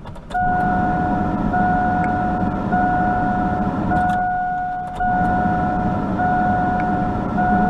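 A 1999 Chevrolet pickup's engine starts about a third of a second in and runs steadily on its newly replaced fuel pump. A steady electronic warning chime beeps about once a second over the engine.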